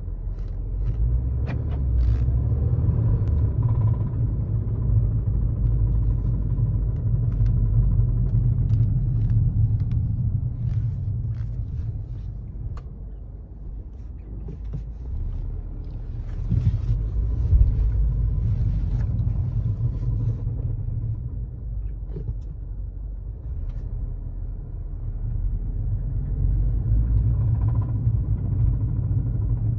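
2015 Mercedes-Benz B250's 2.0-litre turbocharged four-cylinder engine running with a rattle, the sign of a spun bearing. Its loudness rises and falls, easing off twice.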